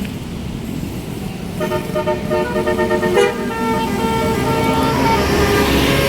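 Tour bus's telolet basuri musical horn playing a quick tune of stepping notes, starting about a second and a half in, over the low rumble of a running bus engine. A swell of noise builds near the end.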